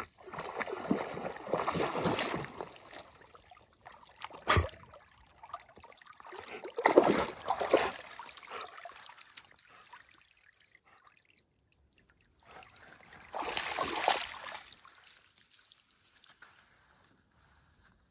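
A dog wading through shallow lake water, splashing and sloshing in a few bursts with quiet gaps between them. The loudest burst comes about seven seconds in, and there is a single sharp knock about four and a half seconds in.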